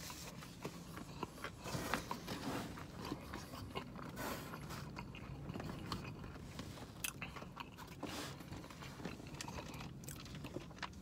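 Faint close-up chewing of a mouthful of pizza, with scattered small mouth clicks and smacks.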